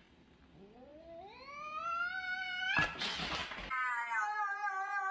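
A cat yowling: a long call that rises steadily in pitch, broken about three seconds in by a short harsh noisy burst, then a second long call held at a steady pitch.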